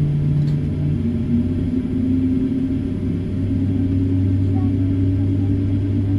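Boeing airliner jet engine starting up: a steady low drone with a tone that rises a little in pitch about a second in as the engine spools up, then holds.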